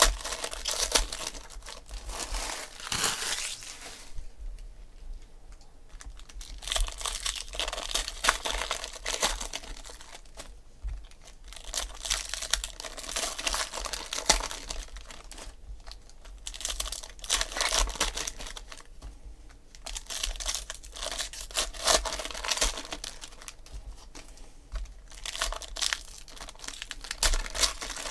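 Foil wrappers of Panini Prizm basketball card packs crinkling and tearing as they are ripped open by hand, in bouts of crackling with short pauses between packs.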